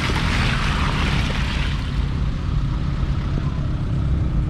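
A Suzuki Vitara 4x4's engine running steadily at low revs as it drives through mud close by. A hiss over the first two seconds fades away.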